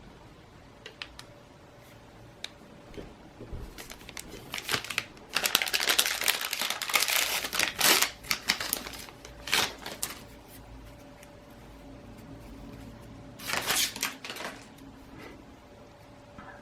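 Crinkling and rustling of a plastic trading-card pack wrapper being handled and opened, loudest for about three seconds starting about five seconds in and again in a shorter stretch near the end, with light clicks and card handling between.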